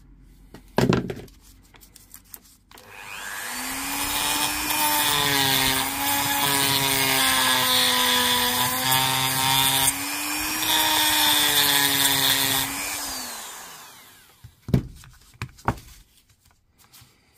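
Dremel rotary tool spinning up, running steadily for about ten seconds while abrading the end of an 18650 cell clean of leftover nickel strip for spot welding, then winding down. A few sharp clicks of the tool and cell being handled come before and after.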